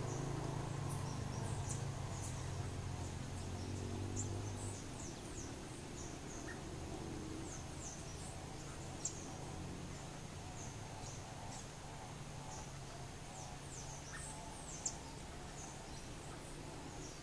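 Outdoor ambience of many short, very high, thin chirps repeating irregularly throughout, over a low hum that fades out about five seconds in. There are two sharp taps, about nine and fifteen seconds in.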